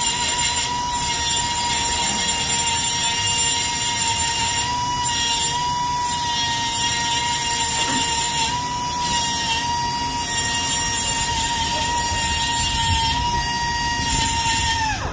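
Cordless reciprocating saw cutting out the old exhaust under the car: a steady high motor whine over a rasping cutting noise that comes and goes. The whine winds down and stops at the very end.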